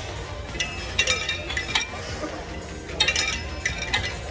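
Cable machine with a rope attachment being worked through reps: several bursts of sharp metal clinks from the weight stack and the rope's clip and swivel as the load is pulled and let back.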